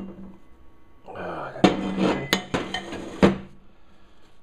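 Metal tools and steel pieces being handled on a workbench: clattering with three sharp metallic clinks, starting about a second in.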